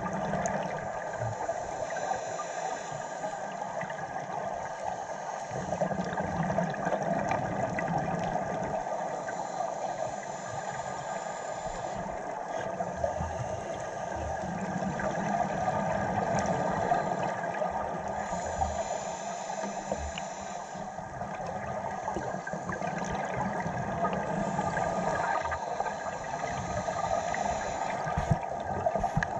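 Underwater sound heard through a dive camera: a steady watery hiss with a faint hum. It swells and fades every several seconds with a scuba diver's regulator breathing and exhaled bubbles.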